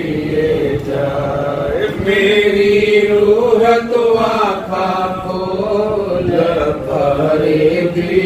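Male voice chanting a Pranami devotional vani in long, drawn-out, melismatic held notes, unaccompanied.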